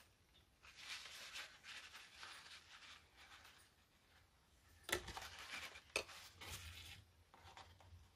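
Faint scraping and rubbing as small hand tools work in the gap between a CPU's circuit board and its heat spreader, with two light clicks about five and six seconds in.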